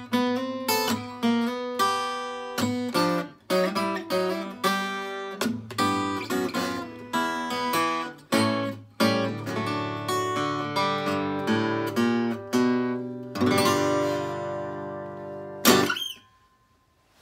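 Steel-string acoustic guitar picked in a country-blues style, playing the closing instrumental bars of a song as a run of single notes and chords. About thirteen seconds in a full chord is strummed and left ringing, then a last sharp stroke is cut off quickly.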